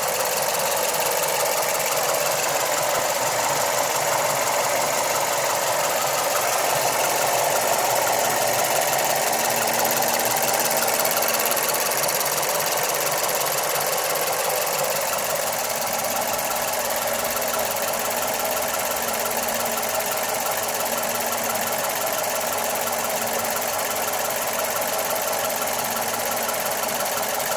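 Mazda 3 MPS's turbocharged 2.3-litre four-cylinder engine running at a steady speed, giving off the strange noise the owner wants identified.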